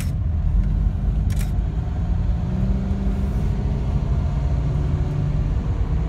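Car driving at steady speed, heard from inside the cabin: a steady low rumble of engine and tyres on the road, with an even engine hum. Two short clicks in the first second and a half.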